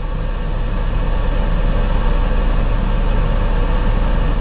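Heavy vehicle engine and road noise, a steady low rumble heard from aboard the moving vehicle, growing a little louder about a second in.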